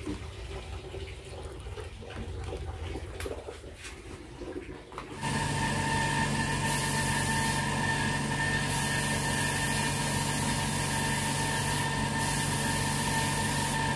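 Faint stirring and handling noises, then about five seconds in the steady hiss of compressed air through a spray gun, with a steady hum underneath, as two-pack clear coat tinted black is sprayed onto a motorcycle frame.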